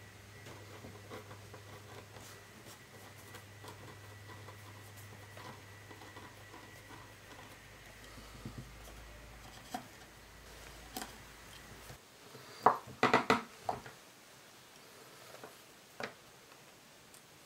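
A wood-handled chisel pressed and worked through a 2 mm veg-tanned leather watch strap on a cutting mat, cutting a slot, with light taps and scrapes over a low steady hum that stops about two-thirds of the way in. Just after that comes a quick run of five or six sharp knocks, the loudest sounds here, then one more single tap.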